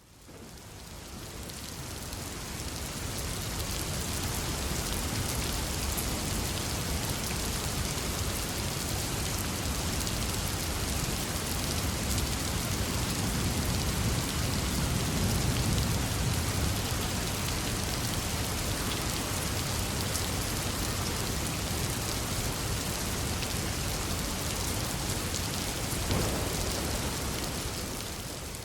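Steady rain falling on a window, with a low rumble of distant thunder swelling about halfway through. The sound fades in at the start and out at the end.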